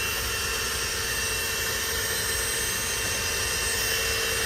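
Small electric air pump running steadily, a constant whirring hum with a high, even whine on top.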